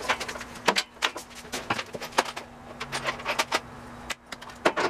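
Scattered clicks and light clatter of metal parts and wiring being handled on a stripped mobility scooter chassis, over a steady low hum.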